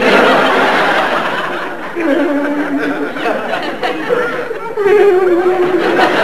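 Studio audience laughing, swelling up again about two seconds in and once more near five seconds.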